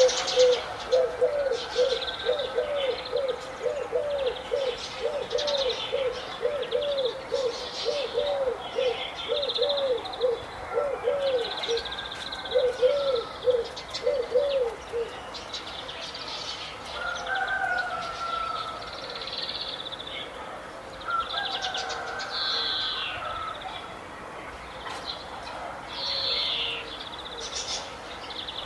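Several birds calling and chirping: high, quick chirps throughout, and for about the first half a low call repeated in short arched notes about twice a second, which then stops.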